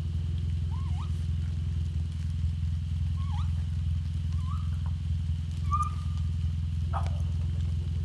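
Raccoons in a tree giving short, squeaky rising-and-falling chirps, four or five of them a second or so apart, one drawn out a little longer, as they squabble. A steady low drone runs under them, and a sharp click comes near the end.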